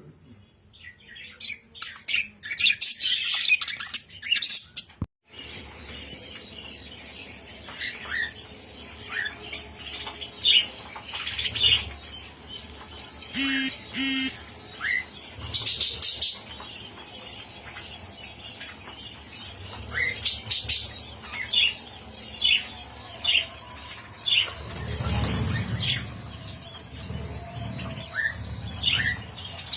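Pet parrots chirping and squawking in many short high calls, broken by a sudden silent gap about five seconds in.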